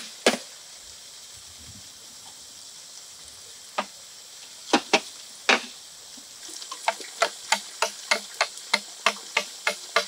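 A large knife chopping into a bamboo pole: a few scattered knocks, then from about seven seconds in a steady run of strikes, about three a second, over a faint steady high hiss.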